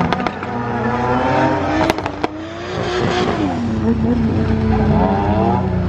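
A drift car's engine revving hard: its pitch climbs, drops away about three seconds in, and climbs again near the end. A couple of sharp cracks come around two seconds in.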